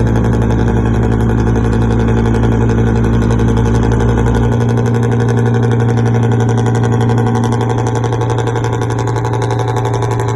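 A large engine running steadily with a deep, even hum; the lowest rumble drops away about four and a half seconds in while the hum carries on.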